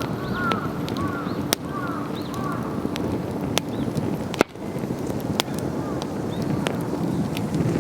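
Wood campfire crackling, with scattered sharp pops over a steady low rush. A small bird chirps repeatedly in short, rising-and-falling notes during the first few seconds.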